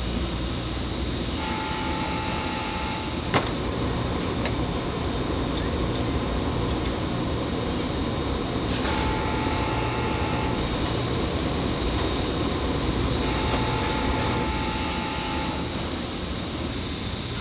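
Steady factory machinery noise at a laser-welding station. A whining machine tone comes and goes three times, each time for a second or two. A single sharp click sounds about three seconds in.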